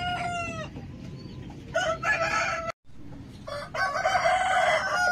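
Rooster crowing repeatedly: one crow tails off with a falling end about half a second in, a shorter one follows near two seconds, and a longer crow fills the last second and a half. The sound breaks off briefly near the middle.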